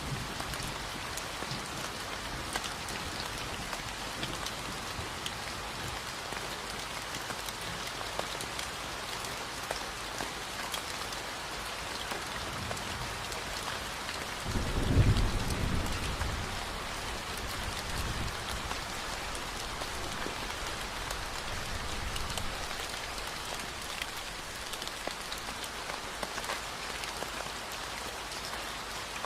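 Steady rain falling, with a dense patter of individual drops. About halfway through, a low rumble of thunder swells and fades over two or three seconds; it is the loudest moment.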